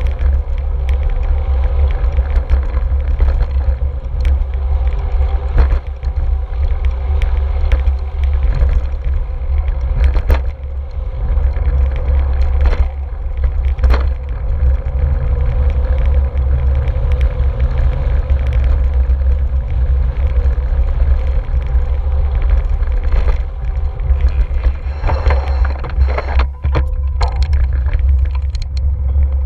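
Wind noise on a GoPro's microphone from a bicycle being ridden along city streets, with tyre and road noise and occasional sharp clicks and knocks, more of them near the end.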